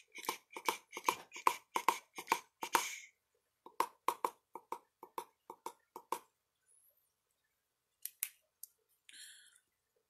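A quick run of light clicks, about four a second for around three seconds, then a softer run of similar clicks. After a pause come two more clicks and a brief rustle near the end.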